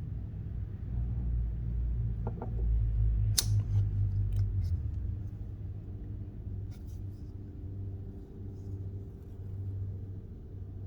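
A vintage jack pocket knife being handled, with a low rumble of handling throughout, one sharp click about three seconds in and a few fainter clicks after it.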